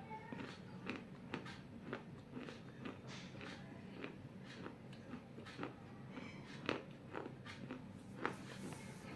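Pieces of a small baked clay bowl being bitten and chewed: crisp cracks and crunches at irregular intervals, a few louder bites near the end.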